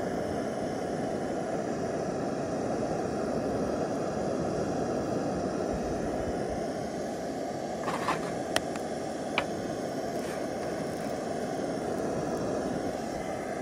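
Iwatani cassette gas burner running under a wire grill, a steady low rumble of the flame. Three short sharp clicks come about eight to nine and a half seconds in.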